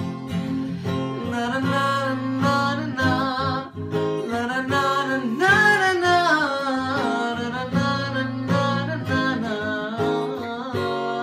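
A man singing to his own strummed cutaway acoustic guitar, with a long held note that bends and falls about halfway through.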